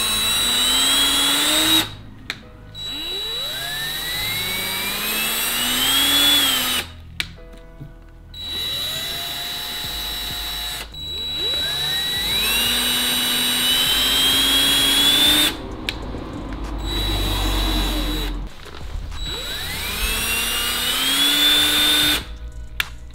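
Cordless drill running in four separate bursts as it bores up into a car's plastic side skirt, each burst a whine that climbs steadily in pitch over a few seconds and then cuts off as the trigger is released.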